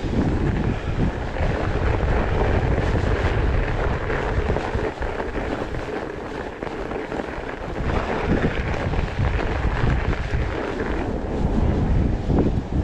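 Wind buffeting the microphone of a camera on a fat bike riding over crusted snow, easing a little midway, mixed with the crunch and rumble of the wide 26 x 5 inch tyres on the snow.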